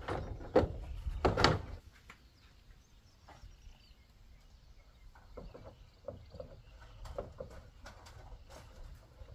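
Corrugated roofing sheet being pushed up and slid into place on a barn roof frame: scraping with two loud knocks in the first two seconds, then scattered faint knocks.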